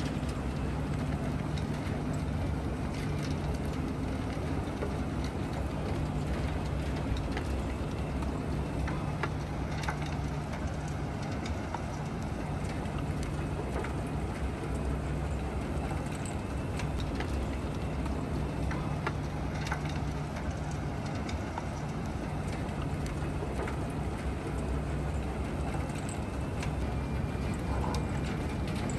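Bucket wheel excavator and belt conveyors running: a steady low mechanical hum with frequent irregular clicks and rattles over it.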